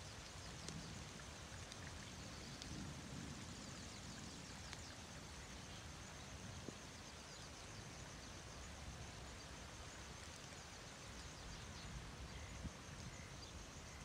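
Faint outdoor ambience: a steady low rumble under a high-pitched, fast-repeating chirping, with a couple of soft clicks.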